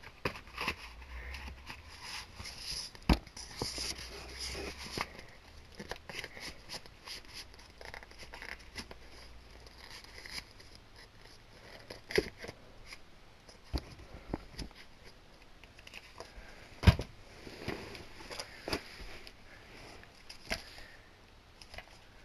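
DVD cases and their packaging being handled: crinkling and scraping with scattered sharp clicks and taps, the loudest about three quarters of the way through.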